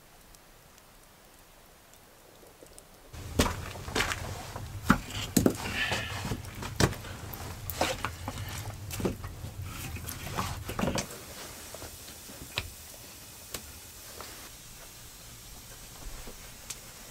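Flat stones clacking and scraping against one another as they are set by hand into a stone floor: a busy run of sharp knocks starting about three seconds in, thinning to occasional ticks in the second half.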